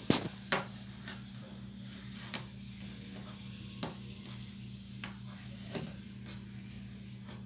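Small clicks and taps from handling a soldering iron and wire leads against a circuit board, two sharp clicks at the start, then a few faint ones about a second apart, over a steady low hum.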